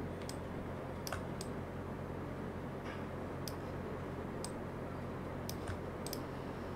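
Quiet room tone with a steady low hum, broken by about ten faint, irregular clicks.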